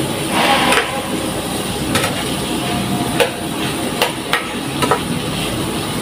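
Shrimp stir-frying in oil in a nonstick frying pan: a steady sizzle, with the spatula scraping the pan and knocking against it several times.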